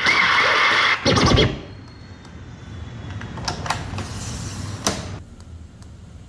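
Scratchy noise: two loud, harsh bursts in the first second and a half, then quieter rustling with a few sharp clicks.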